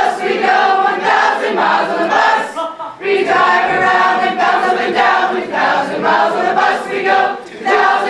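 A large group of people singing together loudly, a lively group song, with brief dips about three seconds in and again near the end.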